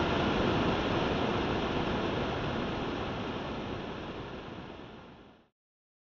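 A steady rushing roar with no clear pitch, which fades away over about five seconds and then cuts off abruptly into silence.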